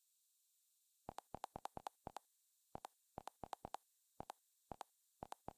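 Android TV menu navigation clicks: short quick double ticks, one for each step the highlight moves down an on-screen menu. They come in quick runs with short pauses, starting about a second in.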